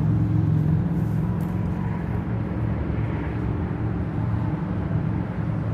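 A steady low rumble with a low hum in it, easing off slightly toward the end.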